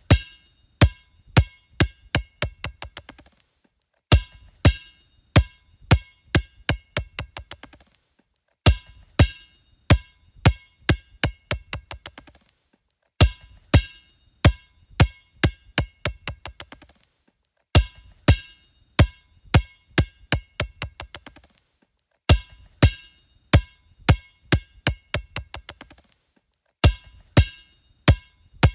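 A basketball dropped and bouncing on a hard floor, each bounce a sharp hollow ping. The bounces come faster and fainter until the ball settles. The drop is repeated about seven times, roughly every four and a half seconds.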